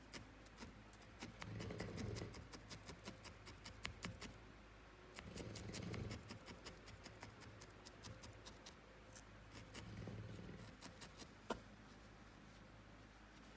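Felting needle stabbing repeatedly into wool, a fast run of faint ticks about five a second, pausing briefly a little after four seconds and again after about nine, with one sharper click near the end.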